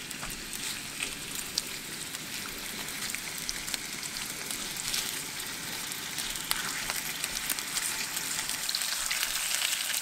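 Thin slices of pork neck sizzling in a hot oiled pan over medium heat, a steady frying hiss with scattered crackles and pops. The sizzle grows a little louder toward the end as more meat goes in.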